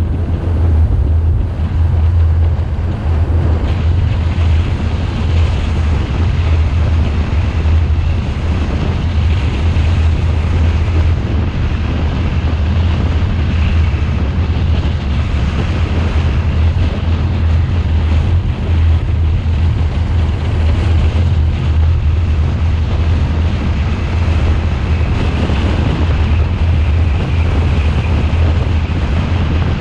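Steady low rumble of wind buffeting the microphone, mixed with the road and engine noise of a car driving along a paved road.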